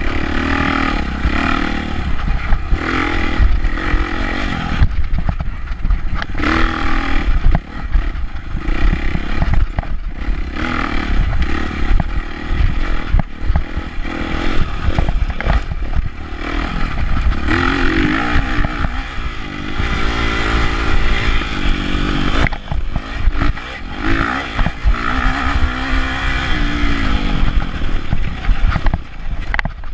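Dirt bike engine revving up and down again and again as it is ridden hard over a rough trail, the pitch rising and falling with each throttle change. Heavy low rumble and short clattering knocks from the bike over the bumps run underneath.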